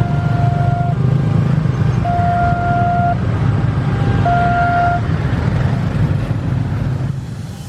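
Level crossing's automatic warning siren sounding a steady electronic tone in roughly one-second pulses, stopping about five seconds in. Under it is a continuous low rumble of vehicles, fading toward the end.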